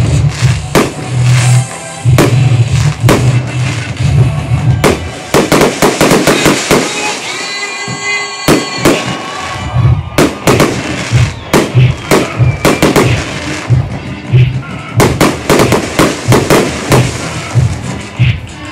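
Fireworks bursting in quick succession, many sharp bangs one after another, over music with a pulsing bass.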